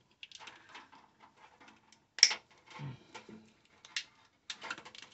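Scattered clicks and rustles of insulated car wiring and a hand wire tool being worked, with one sharp click about two seconds in and a quick run of clicks near the end.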